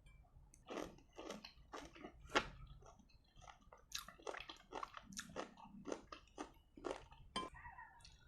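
Close-miked chewing of rujak jeruk nipis, lime pieces in sweet chilli sambal: a run of wet, crunchy bites and chews, about two or three a second.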